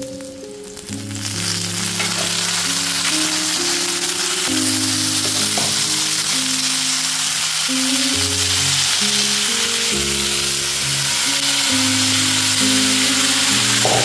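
Mixed chopped vegetables (teasel gourd, papaya and brinjal) sizzling in hot oil and fried onions in a kadhai. The sizzle swells about a second in as the vegetables hit the oil, then holds steady. Background music with a melody plays under it.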